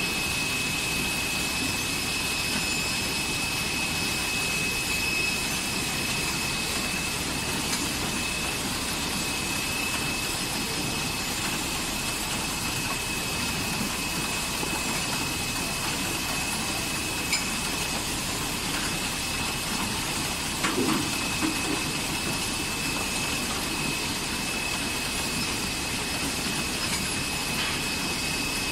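AGM separator enveloping machine for small battery plates running steadily on a factory floor: a continuous mechanical hum with a steady high-pitched whine, and a few light knocks in the second half.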